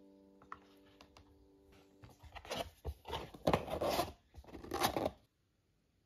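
A cardboard lantern box being handled and its lid slid shut: several short scraping, rustling strokes of cardboard on cardboard, then it stops abruptly.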